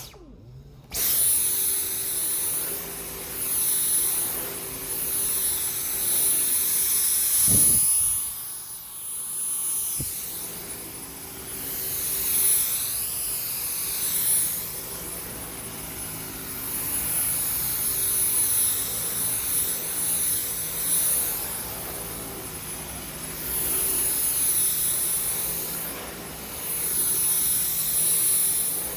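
Dyson V10 cordless stick vacuum running on medium power. It stops briefly and starts up again about a second in, then runs steadily with a high whine while its hiss swells and fades as the floor head is pushed back and forth over carpet.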